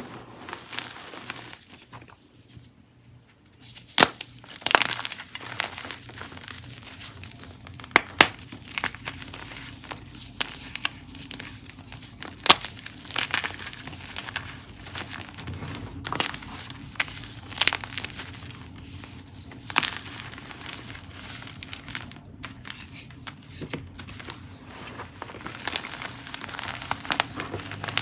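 Gym chalk chunks and blocks being crushed, crumbling with a steady soft crunch broken by frequent sharp cracking snaps.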